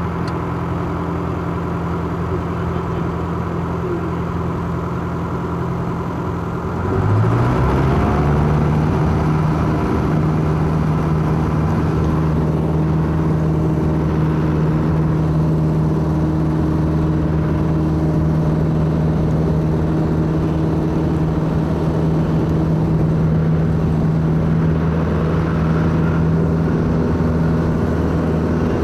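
Robin 2120 light aircraft's propeller engine heard from the cockpit, running steadily at low power, then about seven seconds in opened up to full throttle, its pitch rising quickly into a louder steady drone for the takeoff roll.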